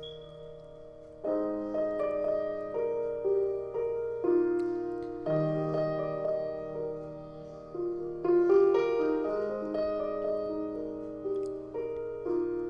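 Instrumental piano interlude of a hymn: melody notes over changing chords, each note struck and dying away. It is soft for about the first second before the notes pick up again.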